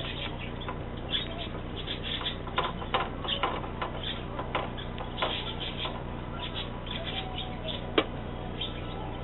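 A screwdriver driving a screw that fastens a hard drive into a metal drive cage: scattered short clicks and scrapes, with one sharp click about eight seconds in, over a steady low hum.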